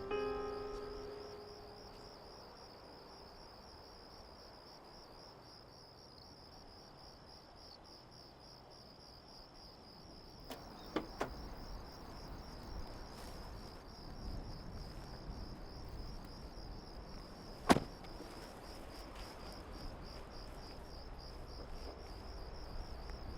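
Crickets chirping in a steady, high, pulsing drone, with two sharp clicks: a double click about halfway through and a louder single one about three-quarters through.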